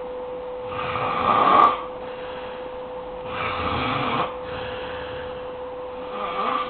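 A man snoring heavily in his sleep: three harsh, rasping snores about two and a half seconds apart, one on each breath, the first the loudest and the last beginning near the end. A steady hum runs underneath.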